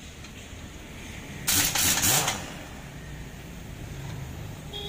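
Pneumatic impact wrench on a truck's wheel-hub nuts, running in one burst of under a second about a second and a half in, over a steady background rumble.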